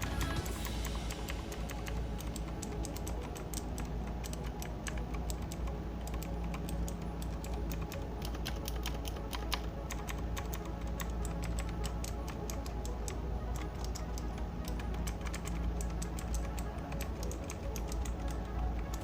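Rapid, irregular clicking keystrokes from typing on an Aula tenkeyless mechanical keyboard with clicky blue switches, a Cherry MX Blue knockoff. Background music plays underneath.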